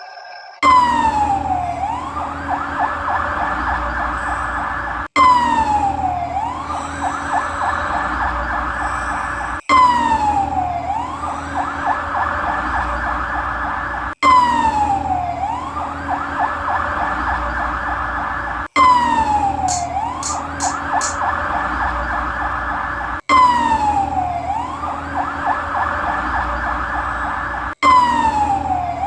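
Electronic siren sound effect from a toy fire truck, played over and over: each round drops in pitch, swings back up and holds a steady pulsing tone. It restarts abruptly about every four and a half seconds, seven times, like a sound button pressed again and again.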